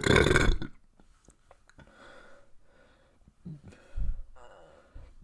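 A person burps once, loudly and briefly, right at the start. Quieter breaths and a short low thump about four seconds in follow.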